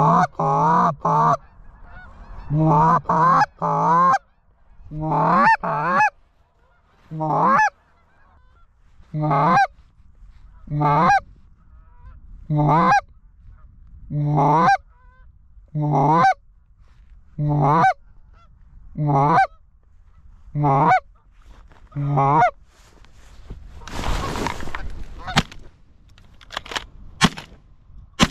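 Canada goose call blown by hand: a quick run of clucks and honks, then single rising-and-breaking honks about every second and a half. Near the end the calling stops and there are a few sharp shotgun shots.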